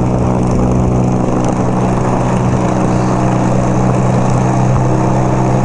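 1975 Kawasaki KZ400 cafe racer's parallel-twin engine running steadily at road speed, with wind buffeting the microphone.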